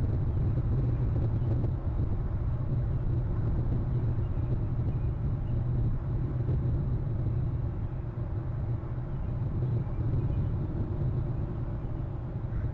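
Steady low rumble of outdoor background noise, with no distinct calls or impacts standing out.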